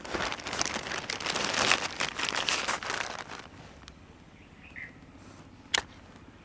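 Crinkling, crackling rustle of the wrapping being pulled open by hand from freshly cut jackfruit scions for grafting, lasting about three seconds. Then a brief faint chirp and a single sharp click.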